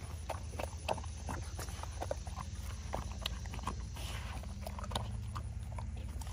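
Belgian Malinois eating raw ground-meat food from a bowl, a quick, irregular run of chewing and gulping sounds.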